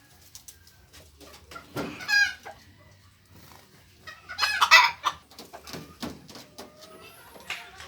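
Chickens clucking, with two loud calls about two seconds and four and a half seconds in.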